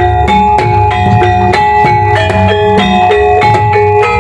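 Javanese gamelan playing kuda lumping accompaniment. Bonang kettle gongs are struck in a quick, even stream of ringing pitched notes over the low beats of a large hand-played drum.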